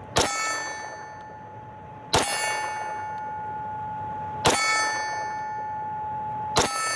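Zev-modified Glock pistol fired slowly, four shots about two seconds apart. Each shot is followed by the long, fading ring of the struck steel target plate.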